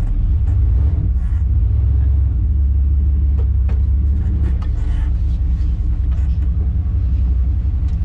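Chevrolet OBS truck's engine and exhaust running as a steady low rumble heard inside the cab while it is driven, with a few light clicks.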